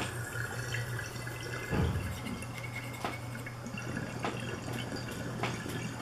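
Water churning and dripping inside a glass water-tornado dab rig as smoke is drawn through it, with scattered drip-like ticks and a low thump about two seconds in.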